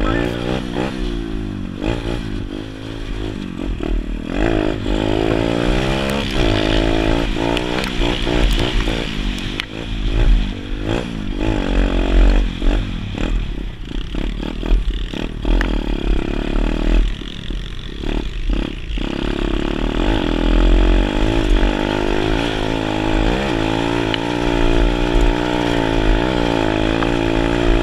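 Pit bike engine revving up and down again and again as the rider opens and closes the throttle while riding a dirt track, heard from a helmet-mounted camera.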